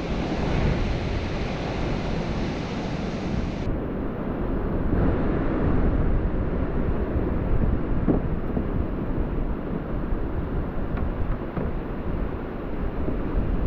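Strong wind buffeting the camera's microphone in a steady low rumble, with ocean surf washing underneath.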